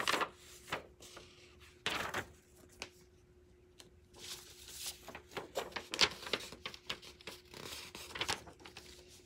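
Sheets of drawing paper being handled and shuffled: intermittent rustling with a few sharp clicks and knocks, the loudest about two seconds in and again about six seconds in, over a faint steady hum.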